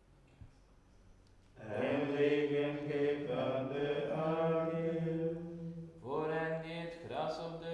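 Carmelite friars chanting the morning prayer in unison, men's voices held on a mostly level pitch. The chant starts about two seconds in, pauses briefly near six seconds, then goes on.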